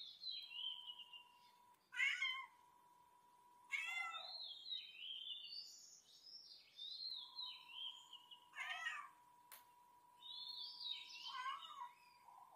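A tabby cat meowing four times, separate calls spread a few seconds apart, the first the loudest. Higher chirping notes run between the meows.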